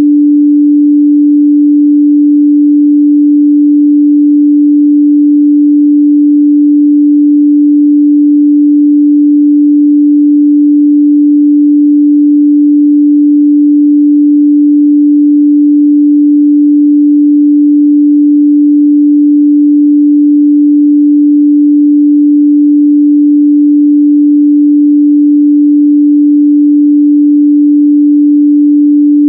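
A steady, unbroken 293 Hz sine-wave test tone, a single pure pitch held at constant level.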